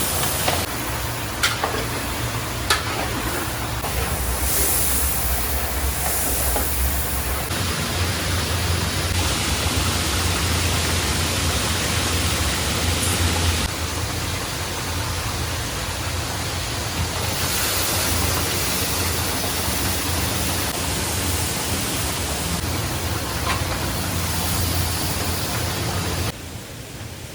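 Steady hissing, rushing noise of large-scale cooking over a strong low hum. There are a few sharp metal clinks in the first few seconds, and the sound changes abruptly several times.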